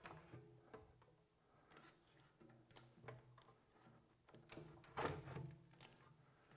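Faint handling noise as a steam generator's steam cylinder is fitted onto its base: a few light clicks and knocks, with one louder knock about five seconds in.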